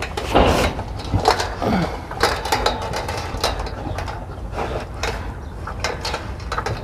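Rottweiler eating from a stainless steel bowl, crunching dry kibble and chewing raw chicken, in quick irregular crunches and clicks.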